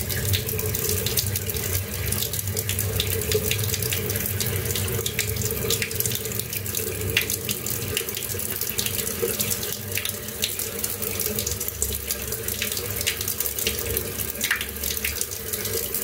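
Kitchen tap running steadily into a sink, water splashing without a break.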